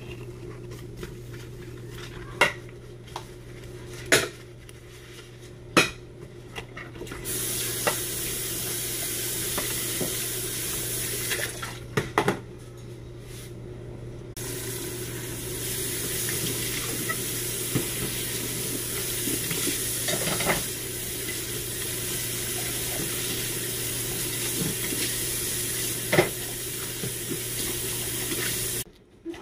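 Dishes being washed by hand in a kitchen sink: scattered clinks and knocks of plates, a cup and plastic containers, then the tap running onto them in two long stretches, stopping for a few seconds in between.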